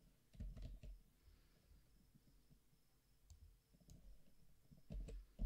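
Faint computer mouse clicks: a cluster of clicks about half a second in and two more near the end, the last one the loudest.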